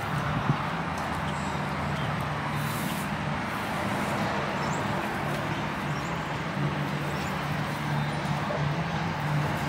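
Alpaca chewing hay over a steady low mechanical hum, like a nearby engine running.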